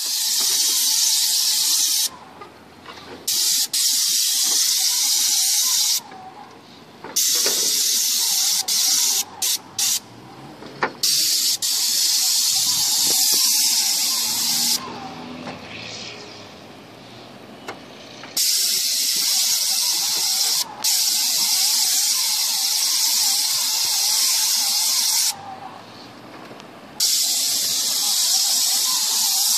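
Paint spray gun hissing as it sprays roof paint, cutting off abruptly and restarting several times as the trigger is released and pulled again, the longest break about three and a half seconds midway. A faint wavering whine runs underneath.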